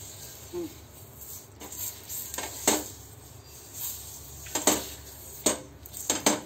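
Metal fork with a halved onion on it rubbed over an oiled, hot iron tawa, its tines clinking sharply against the pan about five times, most of them near the end. The onion rub is seasoning the iron tawa so that it turns non-stick.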